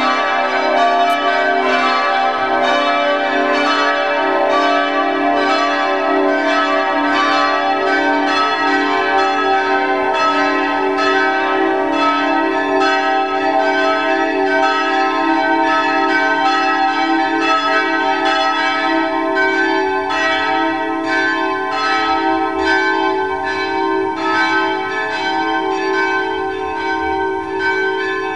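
A single swinging church bell, bell 4 of the peal, ringing full and steady. It is struck at an even, regular pace and each stroke rings on into the next.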